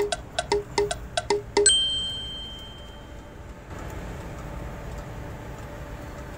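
Metal buckles and D-rings of a full-body safety harness clinking as it is handled and taken off: a quick run of about a dozen sharp clinks, ending about two seconds in with one louder metallic ding that rings and fades within a second.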